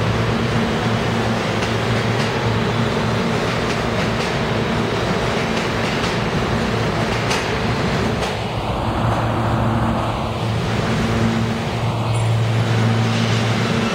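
New York City Subway train running along the platform track, a loud, even rumble of steel wheels on rail with a steady low hum and a few sharp clicks.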